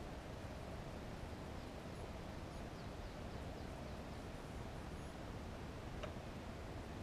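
Steady low hiss of outdoor background noise, with a few faint, short, high-pitched chirps of distant birds and a single faint click about six seconds in.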